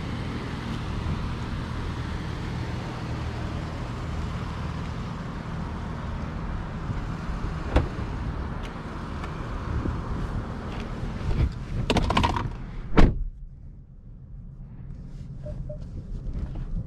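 Dodge Charger GT's 3.6-litre V6 idling steadily, with a few clicks and knocks, then a car door shut with a solid thunk about thirteen seconds in; after that the idling engine is heard quieter and muffled from inside the closed cabin.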